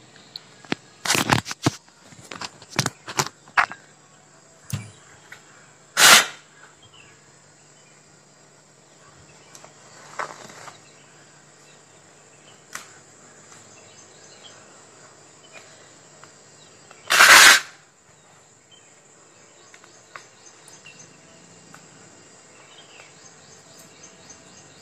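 Handling and rustling of a soft foam cervical collar being put on, with scattered clicks and knocks in the first few seconds. Two short ripping sounds of its hook-and-loop (Velcro) strap being pulled open and fastened, about six seconds in and, louder, near seventeen seconds, over a faint steady hum.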